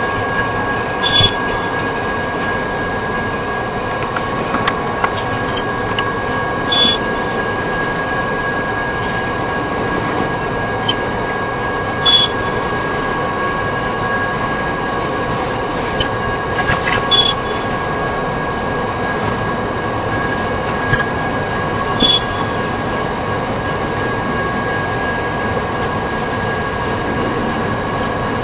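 Union Pacific double-stack container train rolling past: a continuous rumble of steel wheels on rail with a steady high-pitched ring. A short sharp clank sounds about every five seconds.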